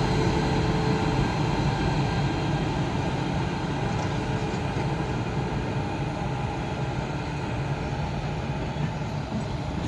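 Passenger express train running along the track, a steady rumble that slowly fades.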